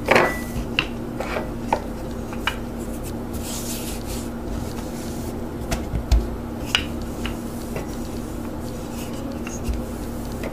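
Wooden rolling pin rolling out stiff biscuit dough on a countertop: scattered light knocks and taps of the pin and hands on the board, with a soft rubbing, over a steady low hum.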